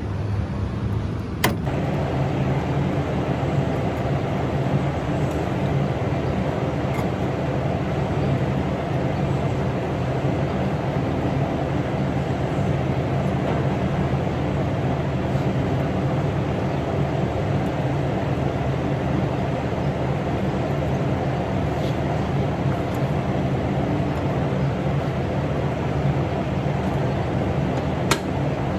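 A tractor engine running steadily at a constant speed, with a sharp click about a second and a half in and another near the end.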